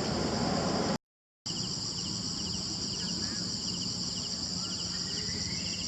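Steady high-pitched insect drone, with short chirping trills repeating about every half second. The sound drops out for half a second about a second in.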